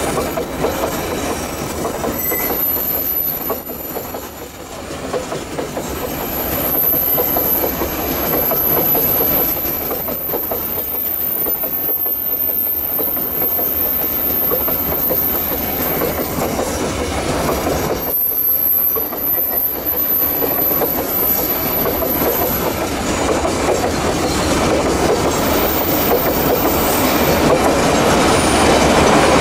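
Long train of steel coal hopper wagons rolling past on a curve, wheels clattering steadily over the rails. A very high-pitched wheel squeal comes and goes several times.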